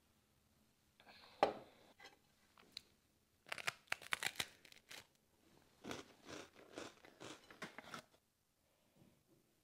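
A sharp knock, then crunchy bites into dry jam-topped rusks and crunching as they are chewed, with the lid being torn off a plastic yogurt cup near the end.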